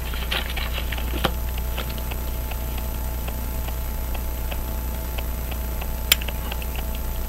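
Small, irregular metallic clicks of steel tweezers against a pocket watch movement as they grip and work at the center wheel's post, with two sharper clicks about a second in and near the end.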